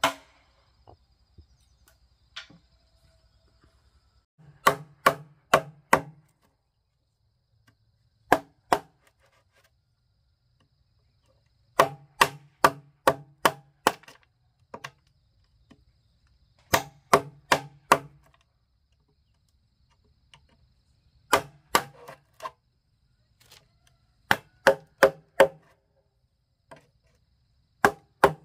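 Chopping strikes into wood in short bursts of two to six blows, about two a second, with pauses between bursts. Each blow is sharp and has a short ringing tone.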